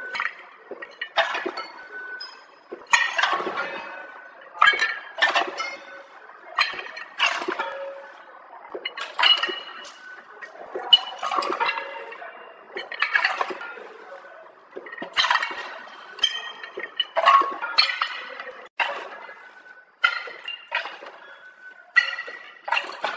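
Lollipops clinking against the stainless-steel buckets of a candy packing machine's feed conveyor. A sharp clink with a short ring comes every second or two, irregularly.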